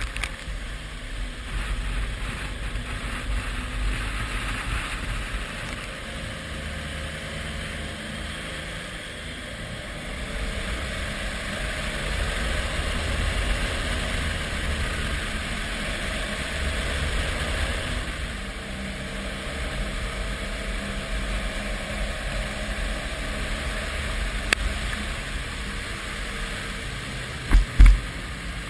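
A vehicle engine running steadily with a low rumble under a steady rushing noise, and two short low thumps near the end.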